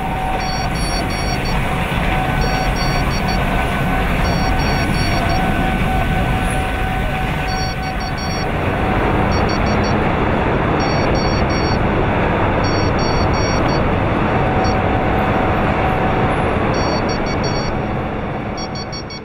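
Loud, steady industrial roar of a steel foundry, with a droning hum through the first half. About eight seconds in, the hum fades and a broader rushing roar takes over.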